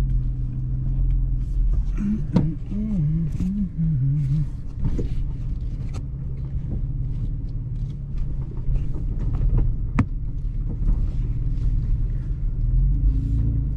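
Toyota FJ Cruiser's 4.0-litre V6 running at low speed, a steady low rumble heard from inside the cab, with frequent knocks and clicks as the SUV crawls over a rough rocky trail. There is a brief wavering hum about two seconds in.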